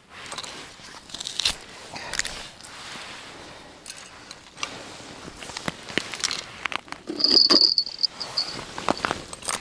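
Irregular crunching and clicking handling noises, with a short, loud, high squeak about seven seconds in.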